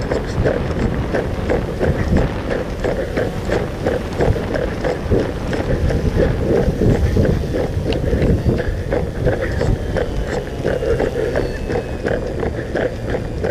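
Hurried footsteps, a quick run of thuds, with the handheld recording gear jostling and rubbing against clothing.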